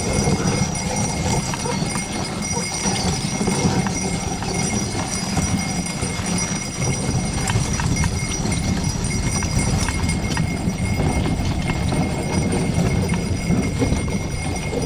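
Hoofbeats of a pair of horses in harness moving along a packed snowy road, over a steady low rumble.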